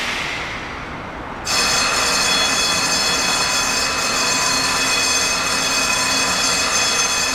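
Meitetsu electric train wheels squealing on the rails: a steady, high-pitched squeal of several held tones that starts abruptly about a second and a half in, over the rumble of the moving train, after a fading rush of noise.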